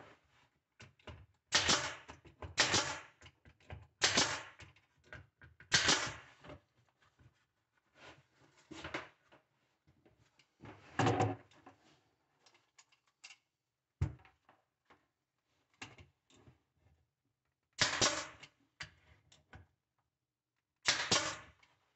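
Pneumatic brad nailer firing about seven times at irregular intervals, each shot a sharp pop with a short hiss of air, driving 3/4-inch brad nails into a wood strip on particleboard. Quieter knocks and tool handling come between the shots.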